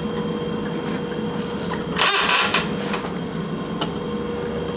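Passenger train carriage interior running noise: a steady rumbling hum with a thin constant whine. About two seconds in comes a short, loud hiss.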